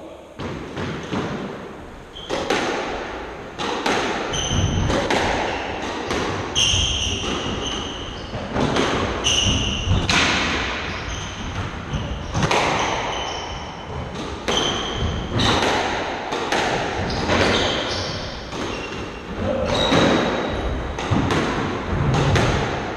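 A squash rally: the ball is struck by rackets and thuds off the court walls in a quick run of sharp impacts. Short high squeaks of shoes on the wooden court floor come in between the hits.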